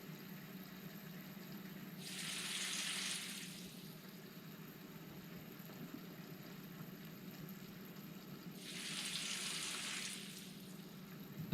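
Kitchen tap running in two short bursts, one about two seconds in and one about nine seconds in, each lasting a second and a half or so, over a faint steady hum.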